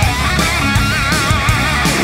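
Heavy rock background music: a lead guitar line wavering in pitch over steady drums and bass.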